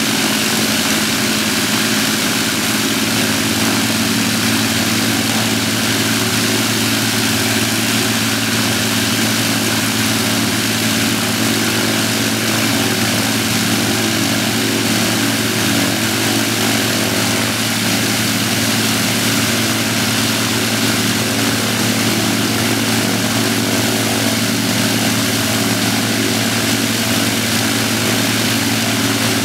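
The four Merlin V12 engines of an Avro Lancaster running together with propellers turning, a loud, steady, even drone that neither rises nor falls.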